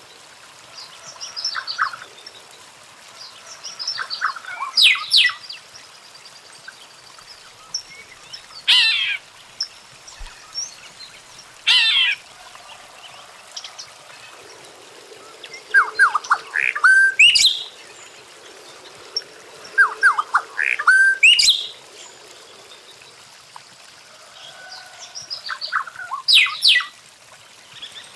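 Golden-winged cacique (tecelão) singing: short phrases of quick whistled and chattering notes that sweep up and down, repeated every three to four seconds with short pauses between.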